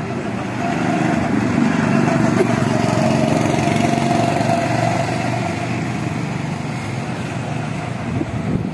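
Small go-kart engines running as karts lap the track, a steady drone that grows louder about a second in and eases off again after the middle.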